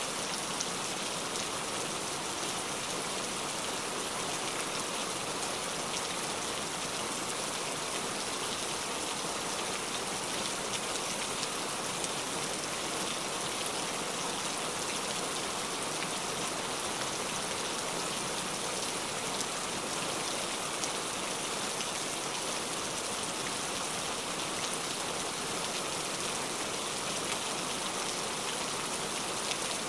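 Steady rain falling, an even hiss flecked with the patter of individual drops.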